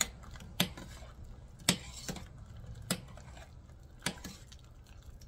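A wire-mesh skimmer stirring dumplings in a pot of hot water, clinking against the metal pot about seven times at an irregular pace.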